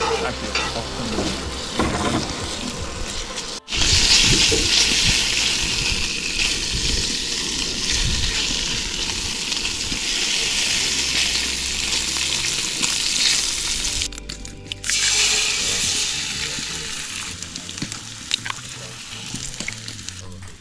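Bacon and then eggs sizzling in a cast-iron skillet on a propane camp stove, the frying hiss jumping louder after a sudden break about four seconds in, with another short break near the end. Music plays underneath.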